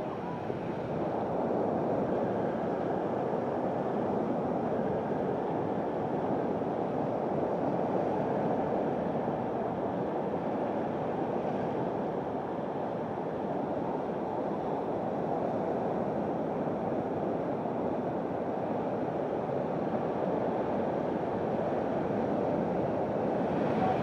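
Sea surf washing on a rocky, shingle shore: a steady, even rush with no separate wave breaks standing out.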